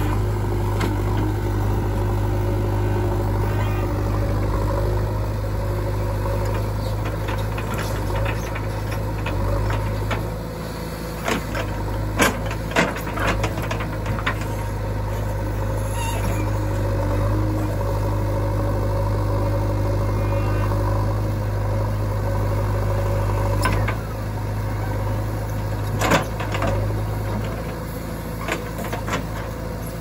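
JCB 3DX backhoe loader's diesel engine running steadily while the backhoe arm digs. Scattered sharp knocks and clanks come through it, several in quick succession about a third of the way in and a few more near the end.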